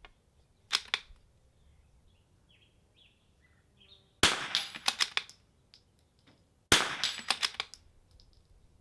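Two shots from a .22 rimfire bolt-action rifle, about two and a half seconds apart, each followed by a quick run of sharp clicks. Two sharp clicks come about a second in, before the first shot.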